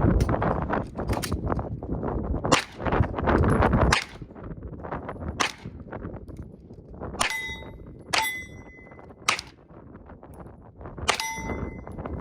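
Glock 19 9mm pistol firing a string of shots about a second apart, with steel targets ringing with a clang as they are hit, most clearly in the second half. A loud rushing noise fills the first four seconds.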